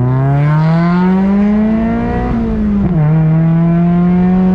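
Mazda NC Miata's 2.0-litre four-cylinder, fitted with a long-tube header and race muffler, revving up hard under acceleration, heard from the open-top cabin. About three seconds in the revs drop sharply in an upshift, and the engine pulls again in the next gear.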